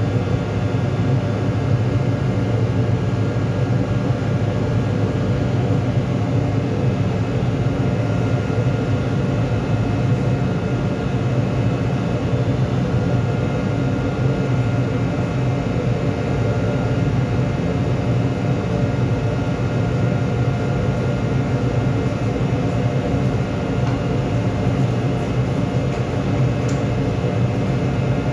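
Steady drone of a ship's machinery: a loud low hum with several steady higher tones over it, unchanging throughout.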